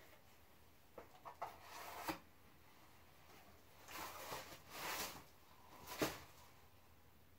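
A wide drywall taping knife spreading and scraping joint compound across a ceiling in several short strokes, with a sharp click about six seconds in.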